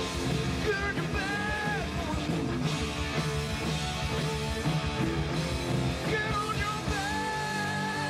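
Live rock band playing. Electric guitar plays long held notes that bend in pitch, over bass and drums.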